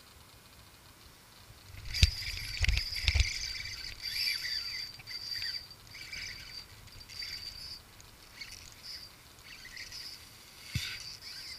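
A few sharp knocks, the loudest sounds, about two seconds in. Then a fishing reel's drag buzzes in repeated short runs with brief pauses as a hooked redfish pulls line off the reel.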